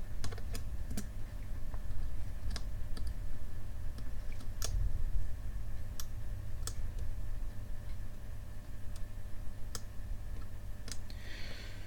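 Irregular small sharp clicks and taps, about a dozen spread unevenly, as the head arm and parts of an opened, damaged 2.5-inch laptop hard drive are pushed and handled to find where the arm binds, over a steady low hum.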